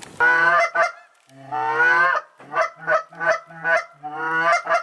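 Hand-blown goose call sounding loud and close: long honks and a run of short clucks about three a second, ending in another honk. It is calling to a lone goose flying over.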